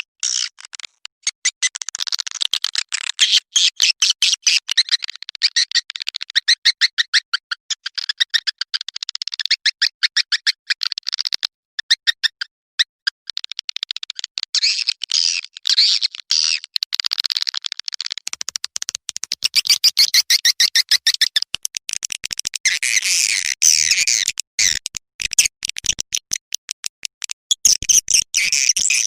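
Swiftlets' high-pitched, rapid chittering trills, coming in runs with short pauses between them. This is a recorded swiftlet call played as a lure to draw the birds into a nesting house.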